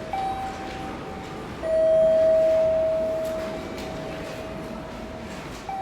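Ringing, chime-like tones that switch between two pitches. A short higher tone comes first, then a louder lower tone enters about a second and a half in and fades away slowly, and the higher tone returns at the very end.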